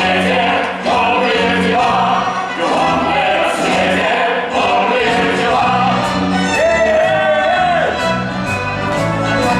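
A stage musical's cast singing together over a symphony orchestra. About seven seconds in, one voice holds a single long note with vibrato.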